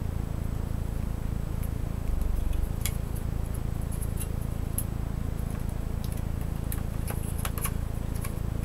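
A steady low hum throughout, with a few faint clicks and taps as small metal laptop parts, the heatsink and fan assembly, are handled and fitted.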